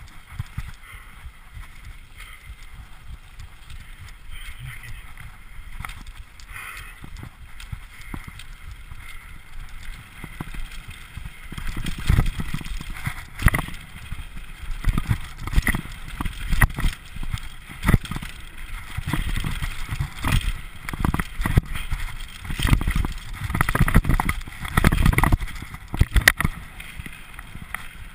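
Mountain bike riding fast down a dirt singletrack: a steady rushing of tyres and riding noise, then from about twelve seconds in, repeated heavy thumps and rattling knocks as the bike hits bumps on the trail.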